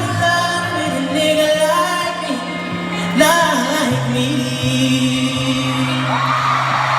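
Live arena concert sound of an R&B song's closing bars: sustained low synth notes under wordless vocal runs that bend and glide in pitch. Near the end a rising wave of crowd screaming and cheering begins.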